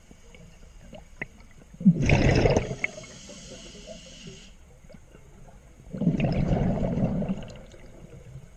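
Scuba diver breathing through a regulator underwater: two loud bursts of exhaled bubbles, about two seconds in and again about six seconds in, with a hiss of air through the regulator for about two seconds after the first.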